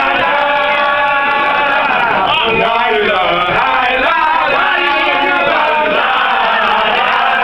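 Crowd of men chanting together in a Mouride devotional chant (zikr), many voices sustaining long notes.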